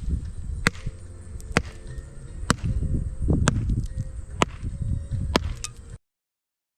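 Irregular sharp knocks and clicks over a low rumble, cutting off to silence about six seconds in.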